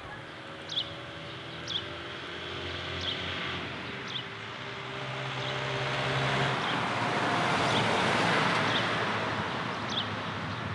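A car drives along a wet road: a steady engine hum, then tyre noise on the wet surface swells to its loudest about eight seconds in and eases off. Short high chirps repeat about once a second.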